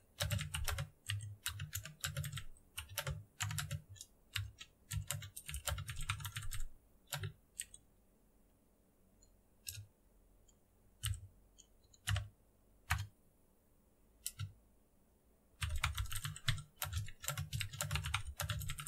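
Typing on a computer keyboard: fast runs of keystrokes, then a sparser stretch of single key presses with pauses in the middle, then fast typing again near the end.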